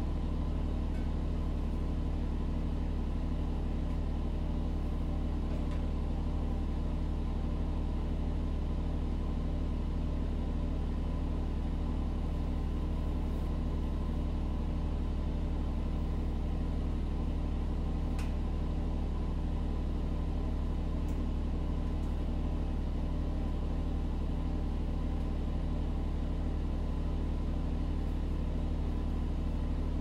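Steady low mechanical hum made of several steady tones, strongest in the low range, unchanging in level, with a faint tick about eighteen seconds in.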